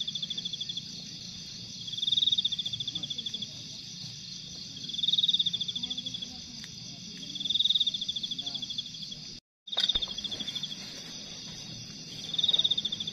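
Night insects calling: a steady high-pitched chorus, with one insect's pulsed call swelling and trailing off about every two and a half seconds. The sound cuts out completely for a moment about two-thirds of the way in.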